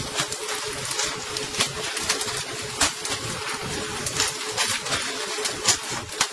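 Boat motor running with a steady hum, under a constant wash of water noise and irregular sharp knocks and splashes.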